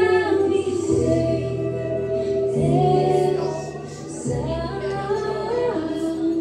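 Music: a female voice singing a melody over sustained accompaniment, the low notes changing every second or two.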